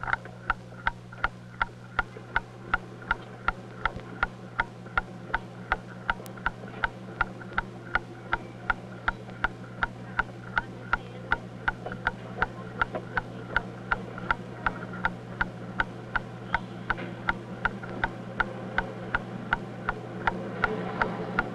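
Steady mechanical ticking, about two to three sharp ticks a second, over a constant low hum.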